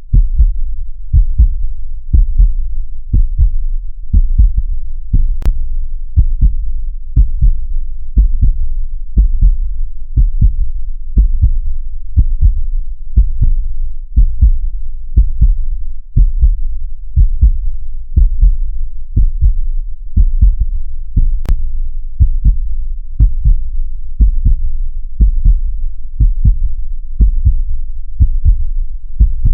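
Heartbeat: steady low lub-dub thumps, roughly one beat a second, repeating evenly.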